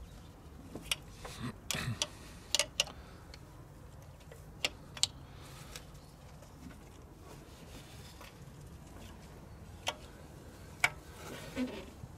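Scattered sharp metallic clicks and clinks of an open-end spanner being fitted to and worked on the high-pressure fuel pipe union nuts of a Renault 1.5 dCi diesel engine, with light rustling of a gloved hand in between.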